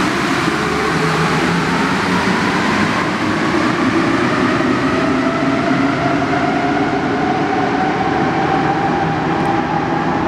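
Alstom NS-16 rubber-tyred metro train pulling out of the station. Its traction drive whine rises steadily in pitch as it gathers speed, over a steady running rumble.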